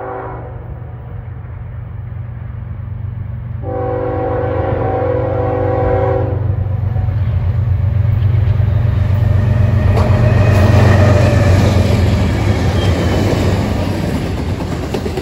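Norfolk Southern diesel freight locomotives sounding a multi-note air horn on the approach to a grade crossing: a brief blast right at the start and a long blast about four seconds in. The low diesel engine rumble then builds, peaking as the locomotives pass, and gives way to the rolling noise of double-stack intermodal cars.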